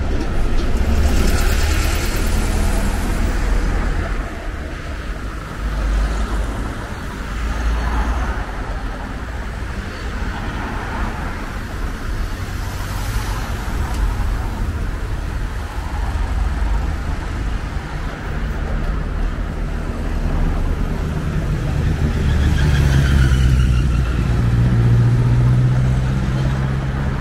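City street traffic: cars driving past one after another, each rising and fading as it goes by. A vehicle's engine hum builds over the last several seconds.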